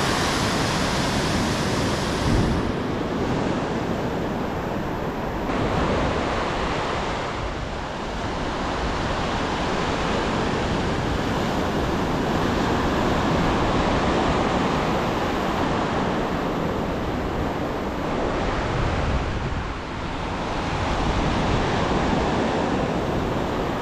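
Ocean surf breaking and washing up a sandy beach: a steady rush that swells and eases as the waves come in.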